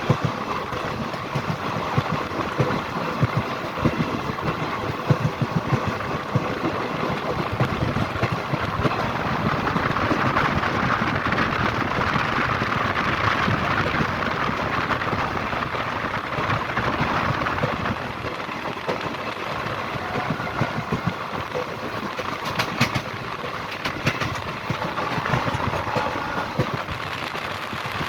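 Train running at speed: a steady rumble with a dense, rattling clatter, swelling louder around the middle and easing a little in the second half.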